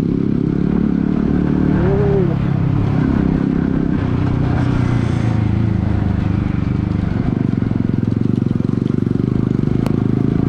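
A vehicle engine running steadily under way, a low, even engine note. About two seconds in there is a brief rising-then-falling tone, and near the end a single sharp click.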